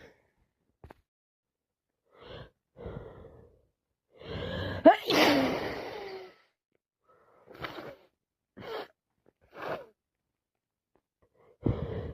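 A woman with a head cold sneezes once, loudly, about five seconds in, after a drawn-in gasping breath. A few short breaths come before and after the sneeze.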